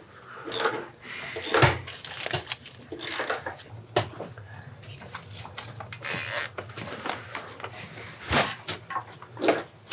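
Handling noises: scattered light clicks, rubs and rustles of hands fastening a loose tail-light cable under a motorcycle's rear fender, with a brief high hiss about six seconds in.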